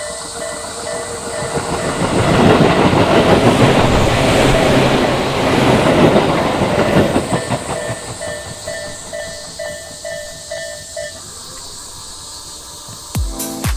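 A Japanese level-crossing alarm bell rings in a steady repeating ding-ding pattern, about two strokes a second, while a Tobu Tojo Line train passes. The train's wheels and cars rush and clatter loudly from about two to seven seconds in. The bell stops about eleven seconds in, and music comes in near the end.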